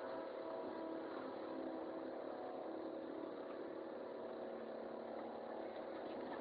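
Excavator engine running steadily, a constant hum with no change in pitch or loudness.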